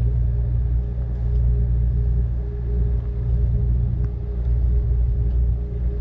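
Steady low rumble and hum of a standing Amtrak Cascades train, heard from inside the passenger car while it waits.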